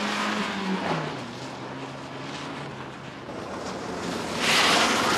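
A van's engine running as it drives across rough ground, its note dropping about a second in, with a louder rush of tyre and road noise near the end.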